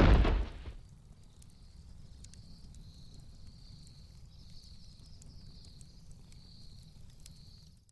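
Logo sting sound effect: a loud impact hit that dies away within about a second, then a steady low rumble with a faint high, pulsing hiss that cuts off suddenly at the end.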